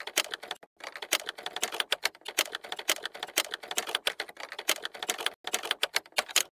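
Rapid, irregular sharp clicks and taps, several a second, pausing briefly about half a second in and again near the end.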